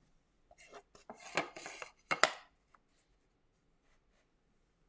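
Handling noise: a rigid divided-dish form rubbed and shifted on the work table, with a couple of sharp knocks a little after two seconds, then quiet.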